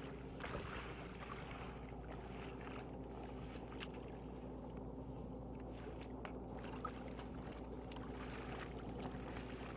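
Tractor engine running steadily at a constant speed, with a single sharp click about four seconds in.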